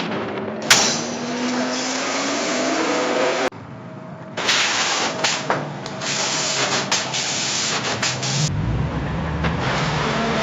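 Staged car crash sound effects: a vehicle hiss with a steady hum and one sharp impact about a second in, then after a sudden break a burst of hissing noise with several sharp knocks and clatter, and a low rumble coming in near the end.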